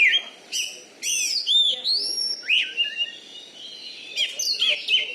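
Oriental magpie-robin (kacer) singing: a loud, fast run of varied whistled notes that sweep up and down, in short phrases with brief breaks.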